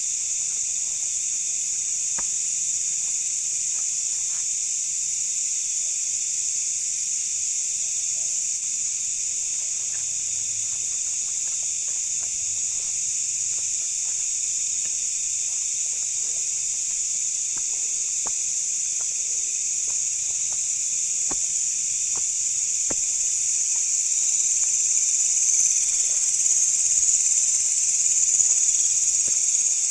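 Night insects chorusing, a dense steady high-pitched buzzing trill that grows louder near the end, with faint scattered clicks underneath.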